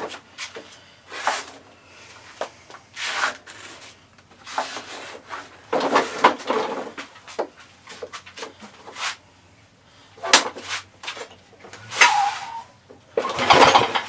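Irregular clunks, scrapes and rattles of hands and tools working on a push mower's parts, with short pauses between. No engine is running.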